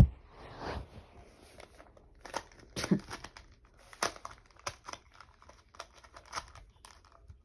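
A sharp knock at the start, then a Rubik's-brand cube's plastic layers clacking in irregular clicks as it is turned, from about two seconds in; this cheap cube turns stiffly and poorly.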